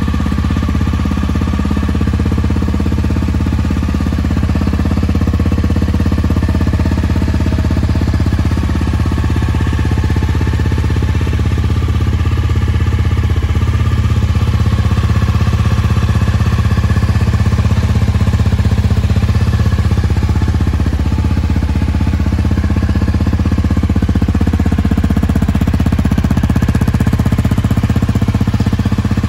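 Honda CRF250 Rally's 249 cc single-cylinder engine idling steadily through an aftermarket Yoshimura slip-on muffler, with a fast, even exhaust beat.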